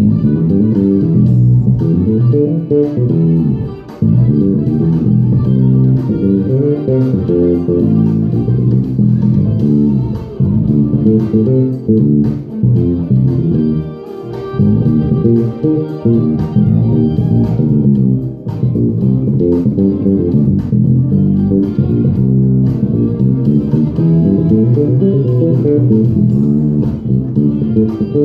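Solo electric bass played through an amplifier: dense runs of plucked notes and chords, with brief pauses about four and fourteen seconds in.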